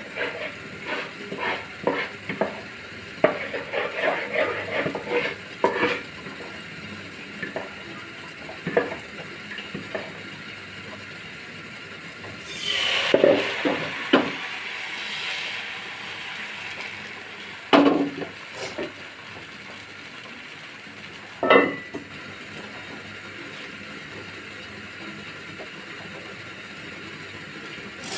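A ladle clinking and scraping as batter is stirred, then batter poured from the ladle onto a hot pan with a brief sizzle about halfway through. Later come two sharp metal knocks as a steel lid is set on the pan.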